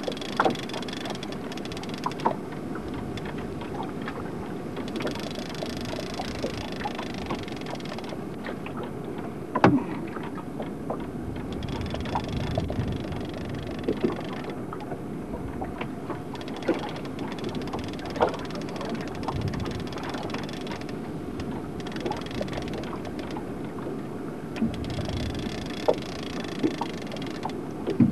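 Steady low rumble and hiss of a small fishing boat on open water, with occasional light knocks and clicks scattered through.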